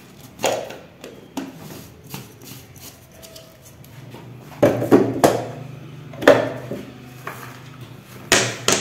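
Scattered knocks and clatters of kitchen items being moved and set down on a wooden tabletop, the loudest around the middle and near the end.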